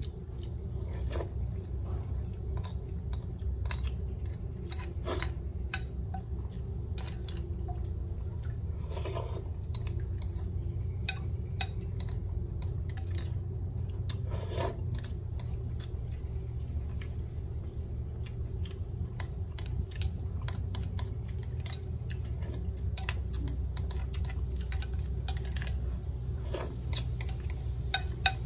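Utensils clicking and scraping against dishes during a meal, many short light clicks scattered throughout, over a steady low hum.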